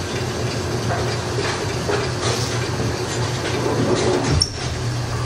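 Steady bowling-alley rumble of pinsetter machinery and rolling balls, with a low hum under it and a sharper knock about four and a half seconds in.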